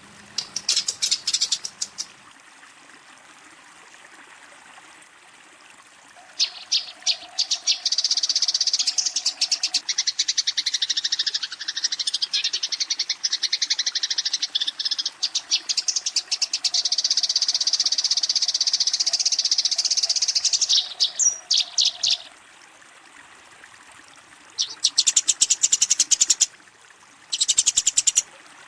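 Eurasian tree sparrow giving rapid, high chattering chirps in dense bursts, the agitated fighting call used to challenge a rival: a short burst at the start, a long run of chatter lasting about fifteen seconds from several seconds in, and a few more short bursts near the end.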